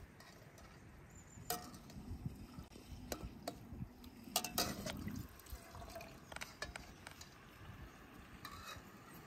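Metal spoon stirring milk and a block of butter in an aluminium pot, with a soft sloshing of the liquid and several sharp clinks of the spoon against the pot, the loudest about halfway through.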